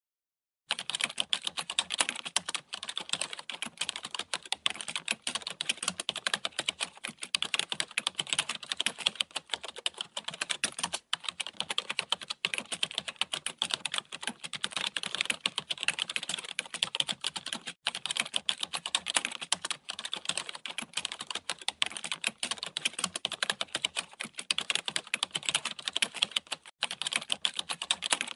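Computer-keyboard typing sound effect: a fast, continuous patter of key clicks that starts just under a second in, after a moment of silence, and breaks off briefly a few times.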